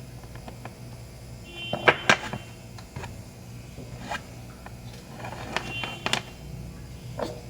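Handling noise from a laptop charger cable repair: sharp clicks and scrapes of small tools and parts in two clusters, about two seconds and six seconds in, over a steady low hum.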